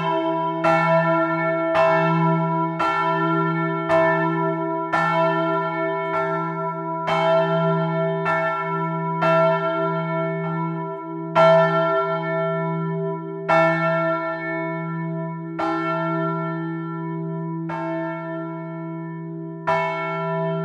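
Motor-swung bronze church bells in a belfry, their clappers striking about once a second. Each stroke rings on over a steady low bell hum. Toward the end the strokes come further apart and fainter as the swing dies down and the peal slows toward a stop.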